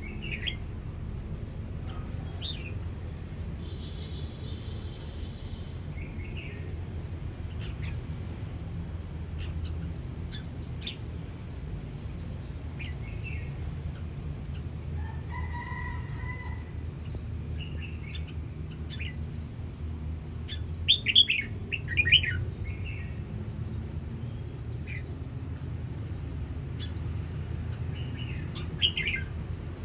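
Caged red-whiskered bulbuls calling: short sharp chirps and brief warbled phrases come scattered through, with the loudest bursts about two-thirds of the way in. A steady low rumble runs underneath.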